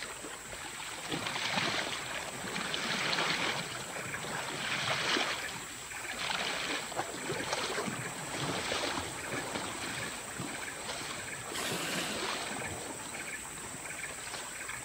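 Water sloshing and splashing around a swimming Asian elephant, the rush of water swelling and easing about every one to two seconds.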